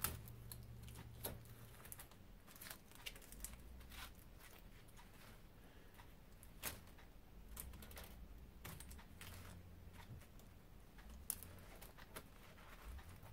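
Faint, irregular light clicks and clinks of thin transformer core laminations being pried apart by gloved hands and dropped onto a stainless steel workbench, over a low steady hum.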